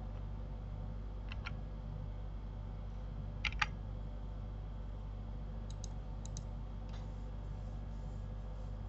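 Short sharp clicks of computer controls, mostly in quick pairs, about five sets with the loudest about three and a half seconds in. Under them runs a steady low hum.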